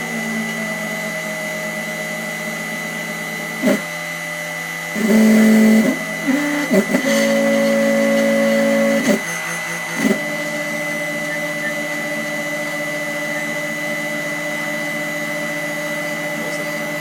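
CNC milling machine running: a steady motor whine under stepper-motor tones that jump to new pitches as the axes change speed and direction, with a few short, louder moves in the first half.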